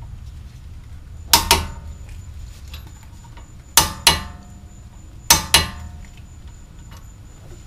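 Click-type torque wrench breaking over as bolts reach 80 foot-pounds: three double clicks, each a sharp metallic click quickly followed by a second one.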